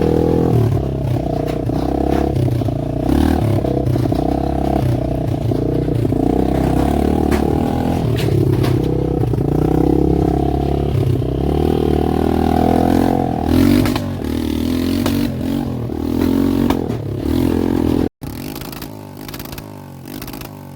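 A motor vehicle engine running and revving, its pitch rising and falling. It cuts off abruptly about eighteen seconds in, and a quieter sound follows.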